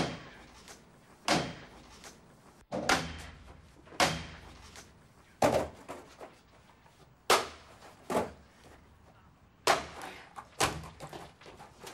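A skateboard being smashed again and again against a balcony floor: about nine hard bangs, a second or two apart, each ringing briefly.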